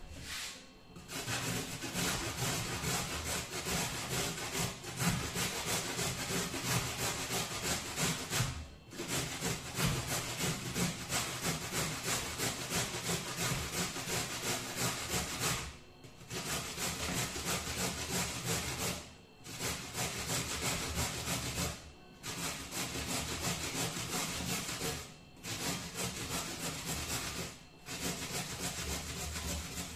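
A carrot being grated on a metal box grater: quick rasping strokes, with short pauses every few seconds.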